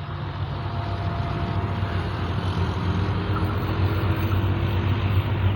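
HGMU-30 diesel-electric locomotive of an express passenger train approaching at speed, its engine rumble growing steadily louder.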